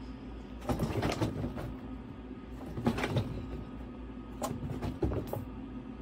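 Scattered light knocks and scrabbling as a guinea pig climbs a cage ramp onto a fleece-covered upper level, over a steady low hum.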